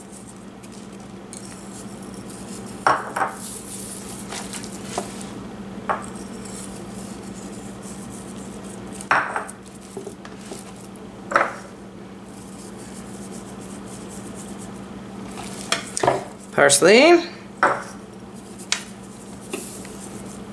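Hands rubbing dried herbs into a raw leg of goat on a ceramic platter, with a few short clicks and knocks of a small ceramic bowl and the platter every few seconds, over a steady low hum.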